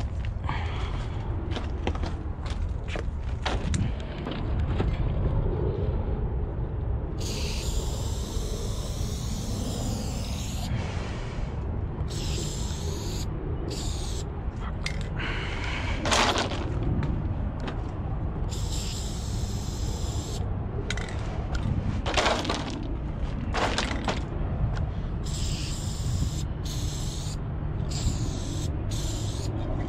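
Aerosol spray paint can hissing in four separate sprays of one to three seconds each, over a steady low rumble, with scattered clicks and knocks between the sprays.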